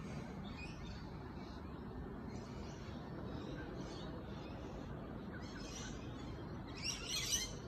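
Birds chirping in short high bursts over a steady low background rumble, with a louder run of chirps about seven seconds in.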